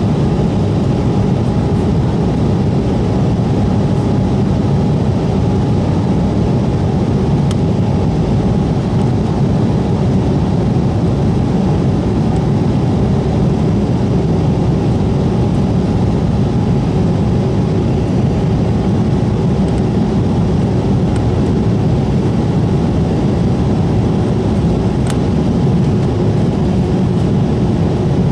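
Steady hum of an Embraer E190's turbofan engines and rushing air heard inside the passenger cabin, with a faint steady whine over it.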